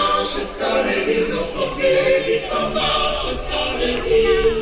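A group of children's voices singing a song together, unaccompanied, in held, steady notes.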